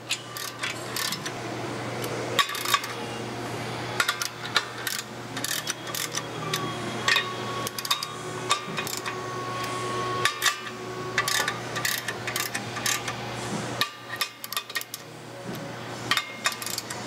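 Hand ratchet wrench clicking and metal clinking on the clutch cover bolts, which are being tightened by hand a half to three-quarter turn at a time in a crisscross pattern. The clicks come in irregular runs.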